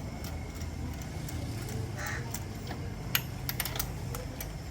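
Toyota Corolla GLi engine idling with a steady low rumble, with several sharp clicks about three seconds in.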